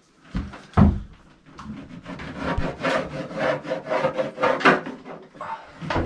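Quick, closely spaced strokes of a hand tool working wood, from about a second and a half in until about five seconds in, after a single thump about a second in.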